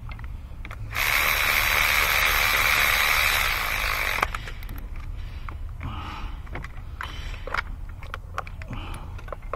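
Cordless electric ratchet running for about three seconds, spinning a spark-plug socket down in the plug well, then cutting off suddenly. Light clicks and taps of tools being handled follow.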